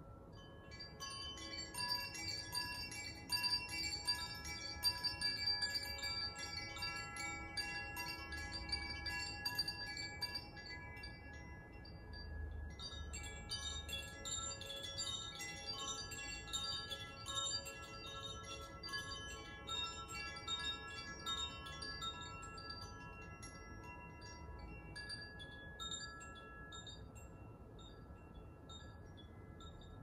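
Koshi and Zaphir chimes, hand-swung on a stand, tinkling in many overlapping ringing tones. The playing eases briefly about twelve seconds in, swells again, and fades away near the end.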